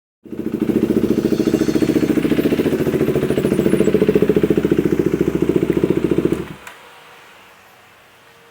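Husqvarna Svartpilen 401's single-cylinder four-stroke engine running with a fast, even pulse. It cuts off abruptly about six seconds in, leaving a faint hum.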